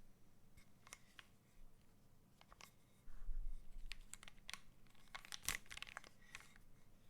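Custom 60% mechanical keyboard with Haimu x Geon White Tactile switches, an aluminium plate and PBT keycaps being typed on: scattered keystroke clacks that come faster past the middle. A low rumble about three seconds in.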